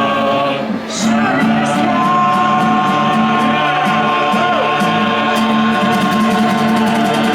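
Several voices holding one long final chord at the close of a pirate song, steady throughout, with a few scattered claps and calls from the audience.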